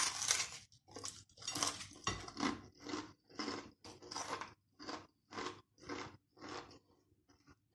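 A loud crunchy bite into crispy deep-fried, flour-coated pork belly, then steady crunching chews about twice a second, close to the microphone, dying away near the end.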